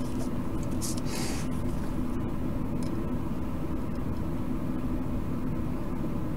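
Steady low background hum with faint held tones, unchanging throughout, and a brief soft hiss about a second in.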